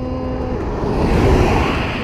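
Road traffic and wind rushing over the microphone while cycling along a highway, with a car passing: the rush swells about a second in and then eases.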